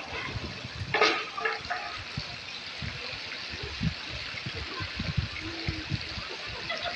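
Steady rush of running and spraying water from a swimming pool's water features, with a brief shout about a second in.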